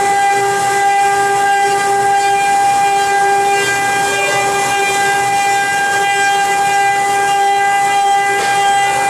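Spindle of a 4D CNC carving router running with a steady whine of several fixed tones over a light hiss.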